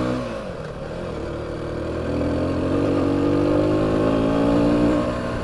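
Aprilia SX125's 125 cc single-cylinder four-stroke engine running under way. Its pitch drops as the throttle is closed at the start, then climbs slowly for a few seconds as the bike picks up speed, and eases off near the end.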